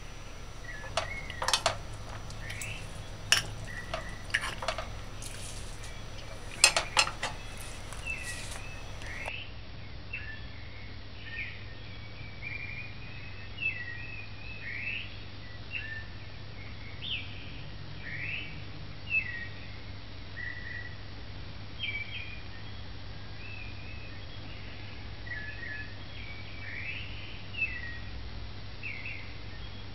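A fork clinks and scrapes on a dinner plate several times in the first few seconds. Then comes a long run of short bird chirps, about one or two a second, each a quick rise or fall in pitch, over a low steady hum.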